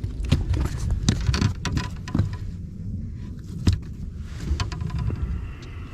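Irregular knocks, taps and rattles on a fishing boat, thick for the first couple of seconds and then sparser, over a steady low rumble.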